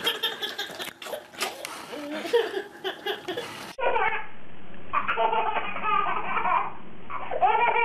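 Babies laughing hard in repeated bursts of belly laughter, with a sudden cut about four seconds in to a different baby's laughter that sounds duller.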